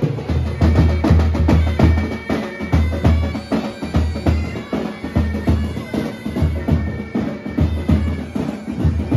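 Pipe band playing live: bagpipes sounding a held drone and melody over snare and bass drums, the bass drum keeping a steady marching beat of roughly two strokes a second.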